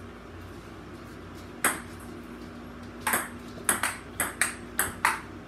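Table tennis ball clicking off paddles and the table: a single hit a little under two seconds in, then a quick rally of about seven hits from about three seconds in.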